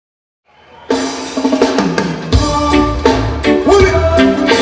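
Live reggae band playing: drum kit with snare and rimshot hits, keyboard tones, and heavy bass coming in about two seconds in. The sound fades up from silence in the first second.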